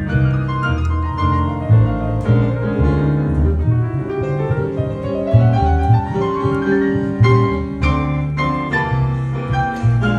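Solo piano playing an instrumental passage, with a steady bass line under chords and a rising run of notes in the middle.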